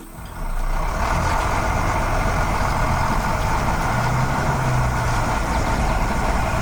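A heavy vehicle's engine running steadily. It comes in about half a second in and holds at an even level, with a low hum that shifts in pitch now and then.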